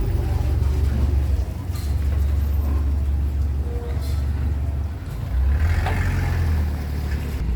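A heavy vehicle's engine running with a steady low rumble, amid street traffic.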